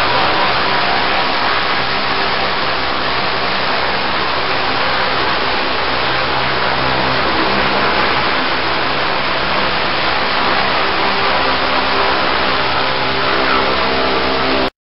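High-pressure water-blasting lance jetting against a barge's steel hull to strip barnacles: a loud, steady hiss of the jet over a steady engine hum. It cuts off suddenly near the end.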